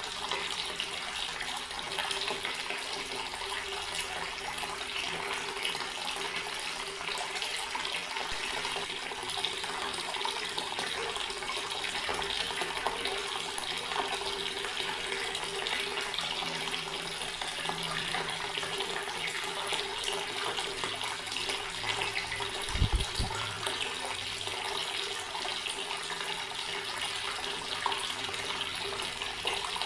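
Water running steadily from a garden tap, splashing without a break. A single brief low thump about three-quarters of the way through.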